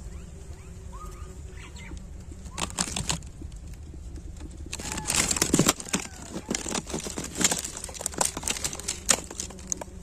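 Dry leaves and twigs rustling and crackling in bursts, briefly about two and a half seconds in and then continuously from about five seconds in until near the end. Underneath is the steady low hum of a swarm of small honeybees on their open comb, and a bird chirps about a second in.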